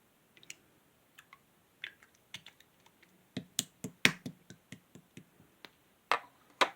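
Clear slime with sequins being pressed and poked by hand, giving irregular sharp clicks and pops. They come in a quick cluster around the middle, with two louder pops near the end.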